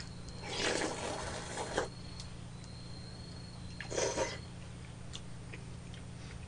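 Eating sounds from a bowl held at the mouth: two short noisy bursts of spooning and slurping half-cooked rice, the first lasting over a second, the second briefer about four seconds in, with a few faint clicks of spoon on bowl.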